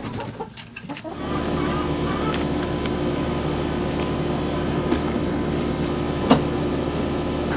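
Faint chicken clucks, then a steady mechanical hum that starts about a second in and runs on evenly. A single sharp click near the end is the latch of the wooden coop door being worked.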